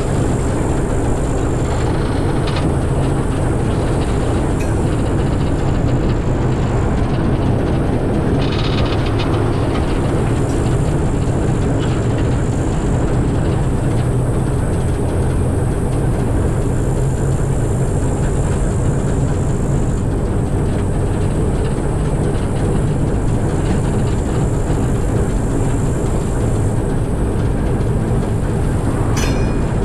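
TEM2 diesel shunting locomotive's engine running steadily under load as it hauls a train of empty wagons, with a few faint clicks from the wheels on the rails.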